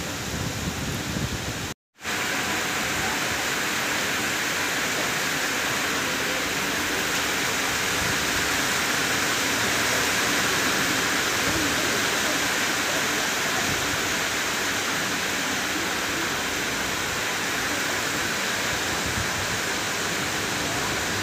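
Steady rain falling, an even hiss throughout, broken by a brief cutout of the audio about two seconds in.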